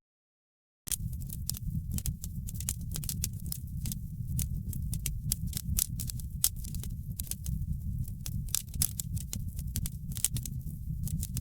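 Fire in a fireplace crackling: frequent irregular sharp pops and snaps over a steady low rumble. The sound drops out completely for about a second at the start, then resumes.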